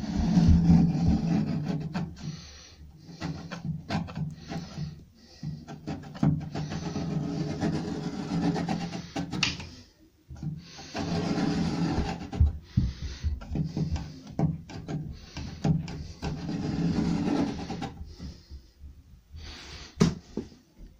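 A pencil scriber is drawn along a plaster wall, its pencil rubbing over masking tape on a wooden desk top. It makes several long scraping strokes with short breaks between them, and there is a sharp click near the end.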